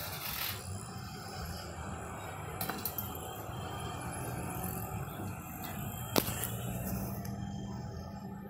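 Electric hydraulic power pack running with a steady low hum as it drives a hydraulic bar shear. A single sharp click comes about six seconds in, with a fainter one earlier.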